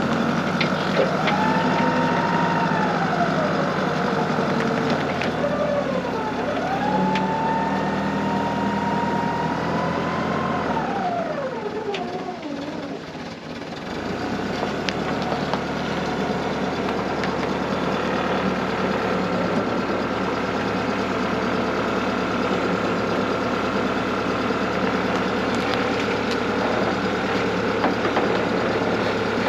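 Forklift engine running: it revs up, holds and drops back twice in the first half, dips briefly about 13 seconds in, then runs steadily.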